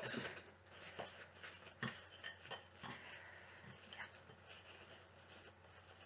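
Faint rustling and crinkling of cling film being pressed and tucked around wet yarn on a plate, with a few small clicks scattered through.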